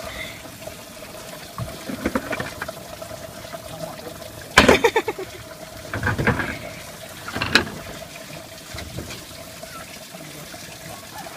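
Water running out of a washing machine as it drains, over a steady hum. Several short, louder sounds break in, the loudest about halfway through.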